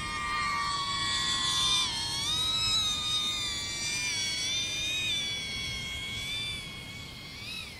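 DJI Avata FPV drone's propellers whining in flight, the pitch sliding up and down with the throttle, with a few quick rising-and-falling swoops near the end.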